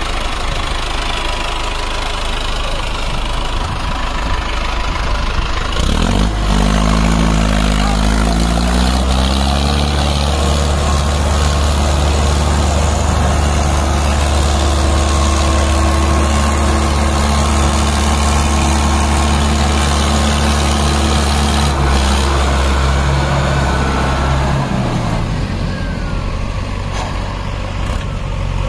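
Heavy diesel engine running, its revs climbing about six seconds in, then held at a steady pitch for some fifteen seconds before dropping back near the end.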